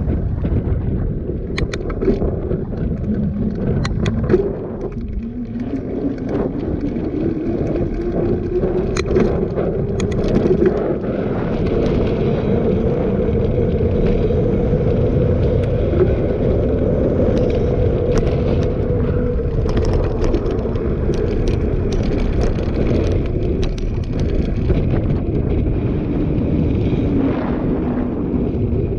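Riding sound of a bicycle on asphalt: wind rumble on the microphone and the hum of a knobby tyre rolling, the hum rising in pitch over the first dozen seconds and sinking again near the end, with scattered clicks and rattles.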